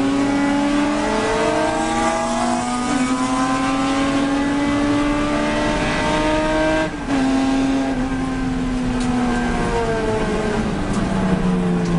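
Mk3 Ford Capri race car's engine at high revs, heard on board, the revs climbing steadily. There is a brief dip in the sound about seven seconds in, and the revs fall near the end.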